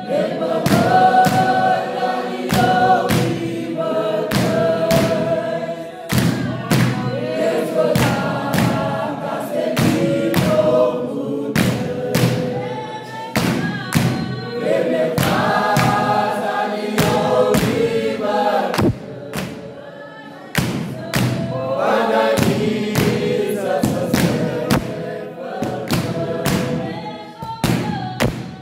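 A group of voices singing a gospel song together in harmony, with a steady beat of hand claps and hand-held pads struck with the palm, about two to three beats a second.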